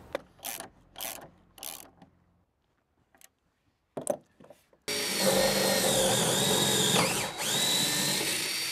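Cordless drill running under load into timber for a coach screw fixing, steady for about four seconds in the second half, its pitch dipping briefly as the bit bites. Before it come three short scraping strokes.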